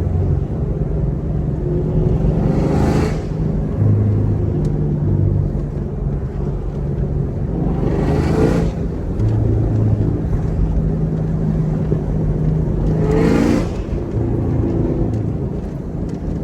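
Chevrolet Camaro SS 1LE's naturally aspirated 6.2-litre V8 running at easy cruising revs through a manual gearbox, its note stepping now and then with the throttle. Three short rushes of noise come about five seconds apart.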